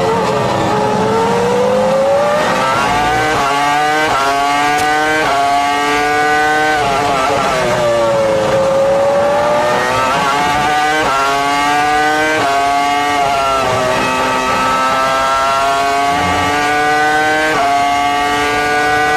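Sauber's Ferrari 3.0-litre V10 Formula 1 engine at racing speed, heard onboard: a high scream that climbs through the gears with quick upshifts, each a sudden drop in pitch. It eases down through a corner around eight seconds in, then pulls up through the gears again.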